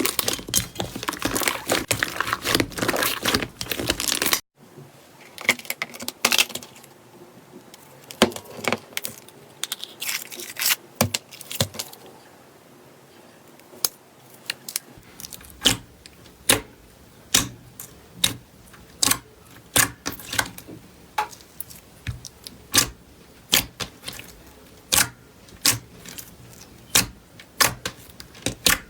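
Slime being squeezed and pressed by hand, giving dense crackling for about four seconds. After a sudden break come scattered clicks, then from about halfway a run of sharp pops a little more than once a second.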